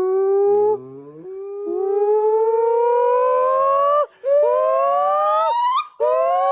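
Gibbon calling: a series of loud, pure-toned notes, each a slow upward glide in pitch. The first note is long, and the following notes come shorter with brief gaps between them.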